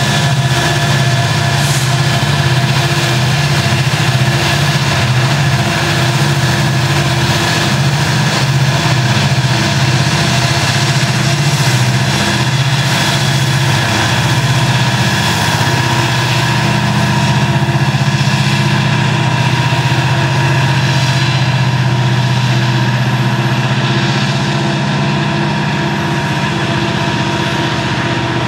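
Mid-train helper diesel-electric locomotives (Montana Rail Link EMD SD70ACes) working under load as the coal train climbs the grade. A steady deep engine hum with thin steady whines above it. It fades slightly near the end as the locomotives pull away and the loaded coal cars roll past.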